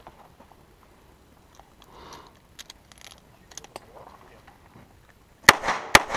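Two handgun shots fired in quick succession, about half a second apart, each ringing out with a short echo: a pair on one target. Before them, only faint clicks and shuffling.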